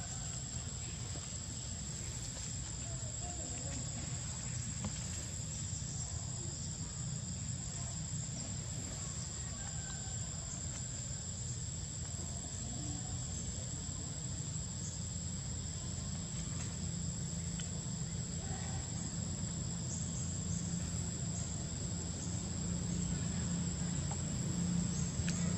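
Steady, high-pitched insect drone over a low background rumble. A low hum grows louder near the end.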